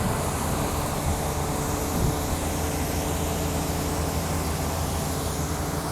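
Case IH 2388 combine's diesel engine and machinery running steadily at a constant pitch, a low hum under a wide mechanical hiss.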